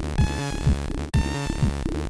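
Commodore 64 SID-chip demo music: an electronic tune with a synthesized kick drum about twice a second under buzzy, stepping synth lines. The music drops out for an instant about halfway through.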